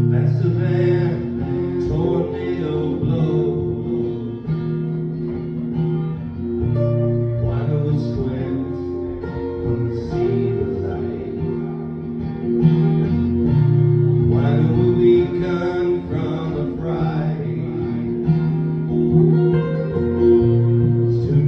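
Live acoustic music: two guitars playing a song together.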